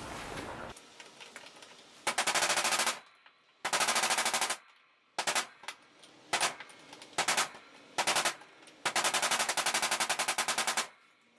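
Hammer blows on a chisel against the old emergency release lock's retaining plate, in quick runs of sharp, evenly spaced strikes with short pauses between; the seized lock is being broken free.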